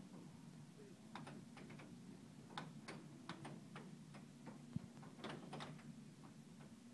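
Air hockey rally: the puck clacking off the mallets and the table's rails in a string of irregular sharp clicks, with one duller knock about five seconds in, over the steady low hum of the air table.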